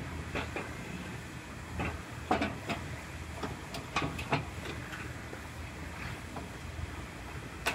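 Steady low background hum of a body shop, with scattered light clicks and knocks at irregular intervals.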